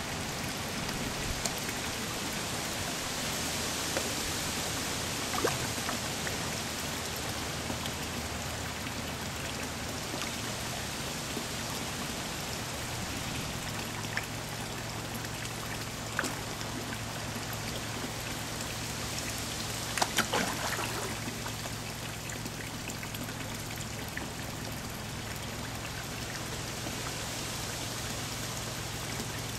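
Pond water trickling and splashing steadily, with a few short, sharp splashes as koi and goldfish take floating food pellets at the surface, the loudest cluster about twenty seconds in. A low steady hum runs underneath.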